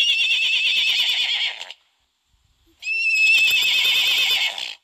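Recorded horse whinny played twice by the Animal 4D+ app's horse animation. Each call is a long, quavering neigh lasting nearly two seconds, with a short silent gap between them.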